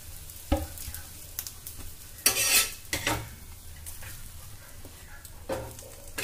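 A metal spatula scraping and knocking on a steel tawa as an omelette is lifted off onto a ceramic plate: one longer, louder scrape about two seconds in and a few short knocks, over faint leftover sizzling.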